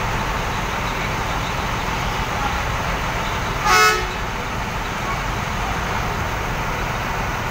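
Steady rumble of bus engines and general bus-terminal noise, with one short vehicle horn toot about four seconds in; the toot is the loudest thing.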